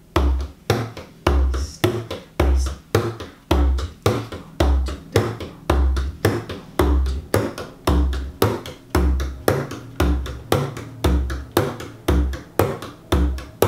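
Bodhrán played with a tipper in a steady reel rhythm: a deep bass stroke about once a second, with lighter, higher-pitched snare strokes between, three to four strokes a second in all.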